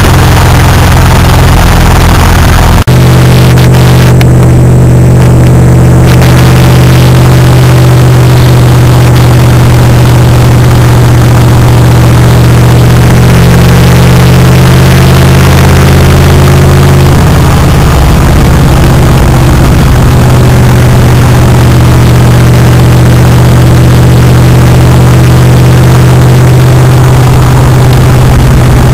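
1978 GMC pickup's engine running at a steady pace while driving, heard loud from inside the cab with road noise. There is a brief break about three seconds in, where the recording cuts.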